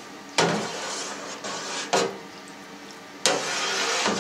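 A long paddle stirring milk in a stainless-steel cheese vat: three sloshing strokes, each starting sharply and fading over about a second, over a faint steady hum.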